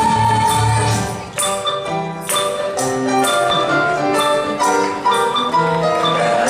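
Live ensemble music: a tune of struck, ringing pitched notes, with a low bass line under the first second.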